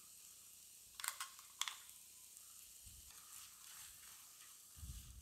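Faint sizzling of capsicum pieces in a pan as ground masala paste goes in, with two sharp taps about a second in. Near the end come soft low thumps of a wooden spatula stirring the paste through.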